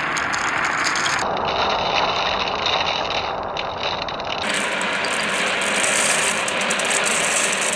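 Many marbles rolling and clattering together along marble-run tracks, a dense continuous rattle of small clicks. Its tone changes abruptly about a second in and again about four and a half seconds in.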